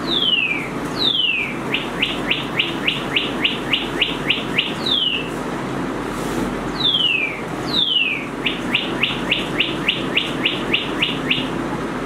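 Motion-sensor bird pen holder playing recorded birdsong through its small speaker: two falling whistles, then a quick run of about a dozen short chirps at about four a second. The sequence plays twice.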